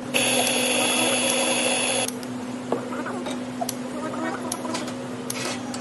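A loud, steady mechanical whirr with a high whine cuts off suddenly about two seconds in. Then come a handful of light metal clinks and knocks from an espresso portafilter and tamper being handled at a commercial espresso machine, over a steady low hum.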